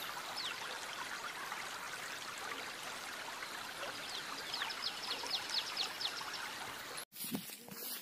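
Water pouring out of the open end of a white PVC irrigation pipe and running over grass and soil, a steady splashing flow. Partway through, a quick run of high chirps sounds over it, and the water sound cuts off near the end.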